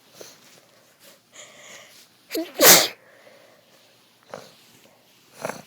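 A woman sneezing once, loudly, about two and a half seconds in, after a breathy drawn-in build-up; the sneeze is set off by a flower held under her nose. Two shorter, quieter bursts follow near the end.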